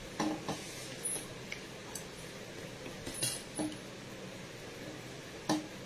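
About eight light clicks and taps spaced unevenly over a steady faint hiss, the loudest about five and a half seconds in: handling noise from things being touched or set down near the microphone.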